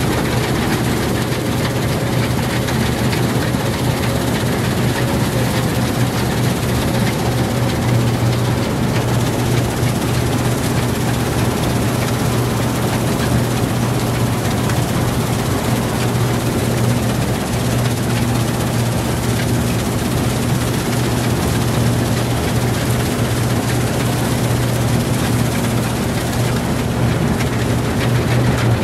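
Combine harvester running steadily while cutting wheat, heard close up from on the machine: a loud, even engine drone with the noise of the header and threshing machinery.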